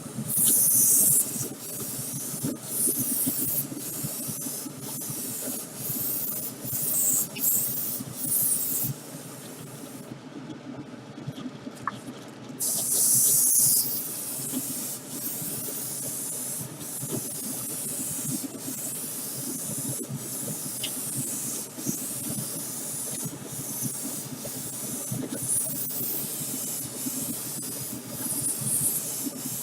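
Clear coat being sprayed onto a model car body in repeated bursts of hiss, some short and some a second or two long, over a steady low hum.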